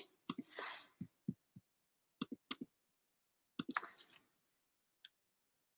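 Soft clicks and taps in a few small scattered clusters, from someone working a computer's mouse and keyboard.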